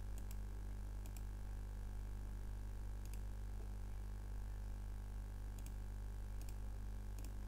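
Computer mouse clicking a handful of times at irregular intervals over a steady low electrical hum.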